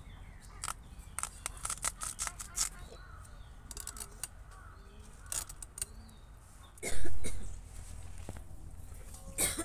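Knife blade clicking and snapping through a firm raw kohlrabi as it is trimmed and sliced by hand: a quick run of sharp clicks, then sparser ones. A loud burst of noise about seven seconds in, with faint bird chirps in the background.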